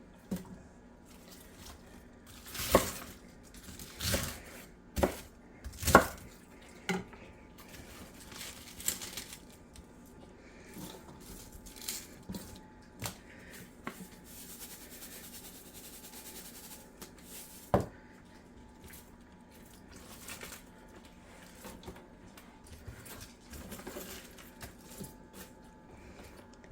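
A bowl and utensils knocking and clinking several times in the first seven seconds and once more in the middle, with faint rustling of shredded cabbage in between.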